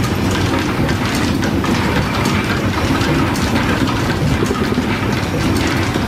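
Belt-driven metal shaper running, its ram stroking back and forth as the tool cuts an angled face on a metal block: a steady mechanical clatter with recurring clacks.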